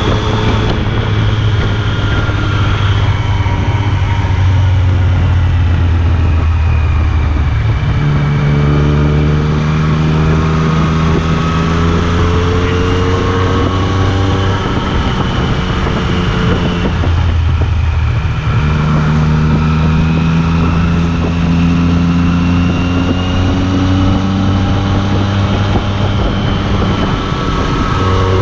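Yamaha FZ-09's inline-three engine running through an Akrapovič carbon-fibre aftermarket exhaust as the bike is ridden. The engine note climbs gradually, dips back around the middle, then climbs again.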